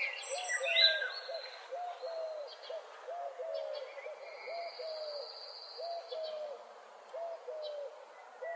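Morning birdsong: one bird repeats low, short hooting notes, two or three a second, throughout. Higher chirps and whistles from other songbirds sound over it, busiest in the first second and again near the end.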